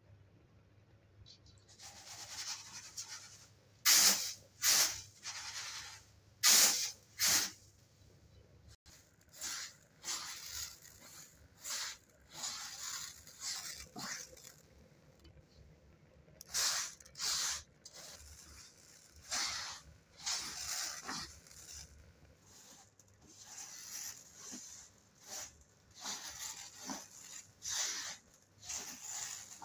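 Dry rice grains swept and spread by hand across a large metal tray, making an irregular series of short scraping rushes. The loudest scrapes come a few seconds in.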